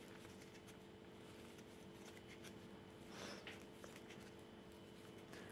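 Near silence: faint rustling of yarn being worked with a crochet hook, a little louder about three seconds in, over a faint steady hum.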